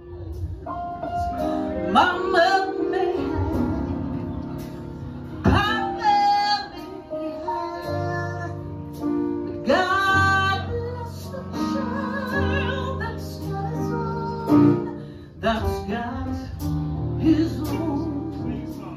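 A woman singing live into a microphone, holding long notes with vibrato, accompanied by an electric bass guitar.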